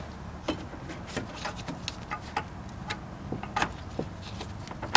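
Irregular light clicks and knocks of a metal fuel filter/pressure regulator canister and its hose clamps being handled and fitted under a car, over a low steady hum.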